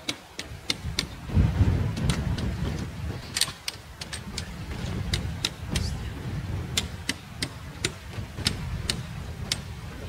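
Sharp, irregular clicks and taps of trekking-pole tips and boots on ice and crusted snow, a few each second, over a steady low rumble.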